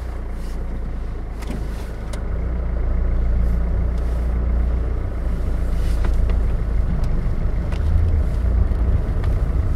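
Car engine heard from inside the cabin as the car pulls away and drives on: a steady low hum that grows louder about two seconds in.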